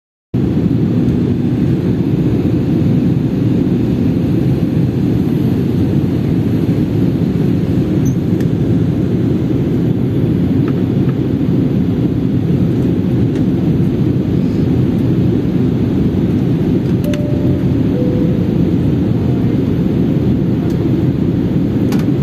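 Steady low roar of jet engines and rushing air, heard from inside an airliner cabin in level flight at cruising altitude.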